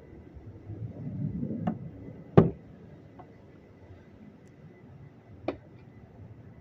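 A sharp knock about two and a half seconds in, after a short low rumble, and a second, lighter knock about five and a half seconds in.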